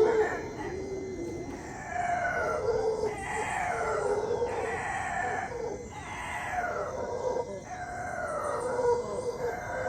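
A troop of howler monkeys howling in chorus, a run of repeated calls that each fall in pitch, about one a second and overlapping.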